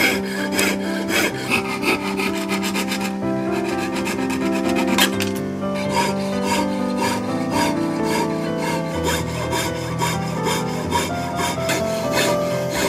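Fine wire saw cutting thin brass sheet, a quick run of rasping back-and-forth strokes repeating steadily, over background music of held notes.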